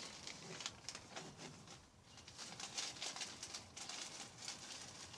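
Faint, irregular rustling and crinkling of a thin plastic bag as it is handled and shaken to tip feeder crickets into a reptile tank.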